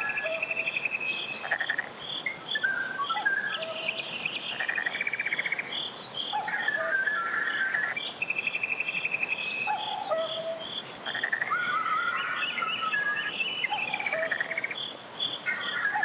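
Mountain valley stream flowing with a steady rush, with several birds singing over it in chirps and trills, and a high pulsing call repeating about twice a second.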